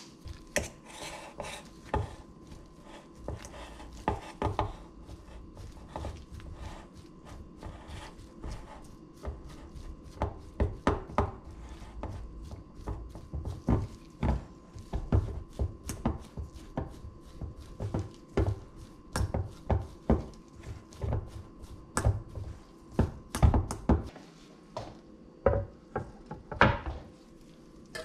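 A fork mashing cooked potato chunks in a stainless steel bowl: irregular knocks and scrapes of the fork on the bowl and through the potato, a few a second. They come thickest in the middle and thin out near the end.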